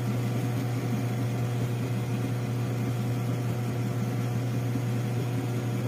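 HOMEFUN 8 kg mini washing machine running, its motor giving a steady, even low hum with faint higher tones over it.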